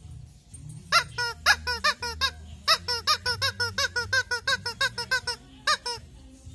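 Yellow rubber chicken squeak toy being squeezed again and again: short squeaks that bend in pitch. A few come about a second in, then a quick, dense run lasting nearly three seconds, and one more near the end.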